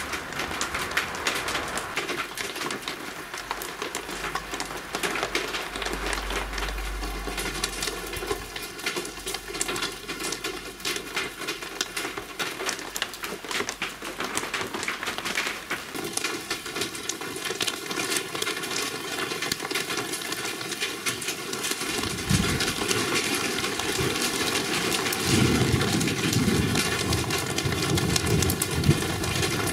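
Shower of large raindrops pattering on surfaces, a dense hiss full of sharp individual drop impacts. A low rumble comes in near the end.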